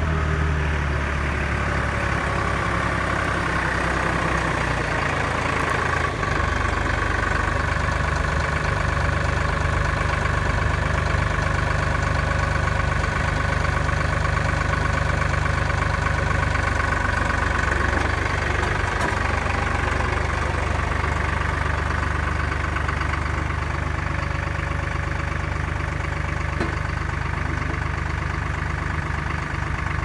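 Tractor engine running steadily while its front-end loader carries a log and sets it on the log bunk, with a higher steady whine over the engine that is strongest in the first half and eases off after about 17 seconds.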